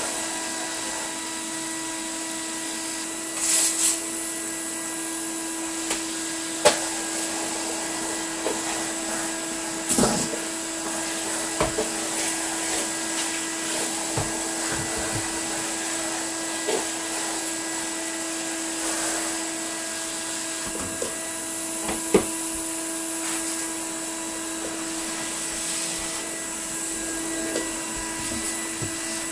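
A 1988 Numatic Henry HVR200 cylinder vacuum cleaner runs steadily with a constant motor whine and suction hiss, its newly fitted carbon brushes bedding in. Occasional sharp knocks and clicks come through, with a short louder rush about four seconds in.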